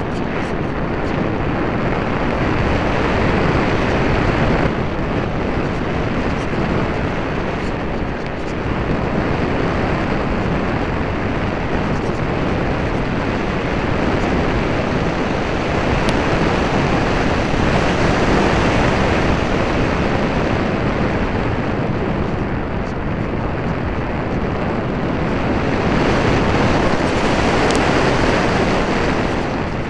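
Loud rushing wind noise from airflow over a keychain camera mounted on a flying RC airplane, a steady rush with no clear engine tone, swelling slightly several times.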